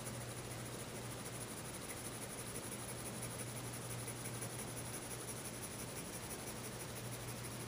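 Pencil scratching on sketchpad paper in rapid back-and-forth shading strokes, with a steady low hum underneath.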